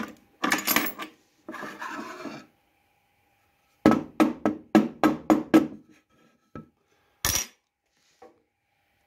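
Freshly engraved hardwood board being handled on the CNC router bed: two short scraping, brushing stretches, then a quick run of about seven knocks on wood in under two seconds, and one sharper knock about seven seconds in.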